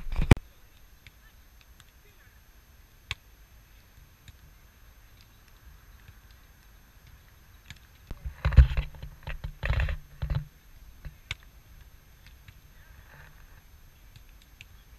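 Beach volleyball play: a few sharp slaps, the loudest right at the start, and a burst of short calls and thumps about eight to ten seconds in, over quiet open-air ambience.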